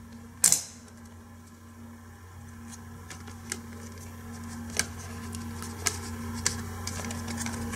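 DVD discs being pushed back onto the stacked centre hub of a clear plastic DVD case: a handful of sharp plastic clicks, the loudest about half a second in, as the discs go back on with a bit of a struggle. A steady low hum runs underneath.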